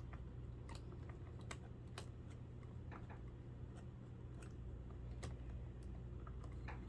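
Scattered light plastic clicks and taps from a clock radio being worked apart, the board jammed in its case, irregular and a second or so apart, over a steady low hum.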